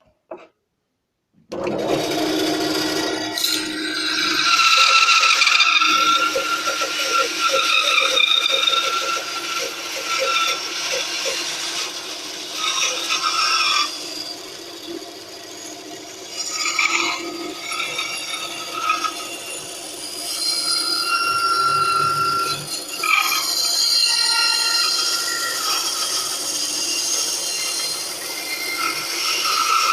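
Titan bandsaw starting up about a second and a half in, then running and cutting wood, its blade riding through a shop-made guide with a thrust bearing that is being tested. The load and the pitch of the cut rise and fall as the wood is fed.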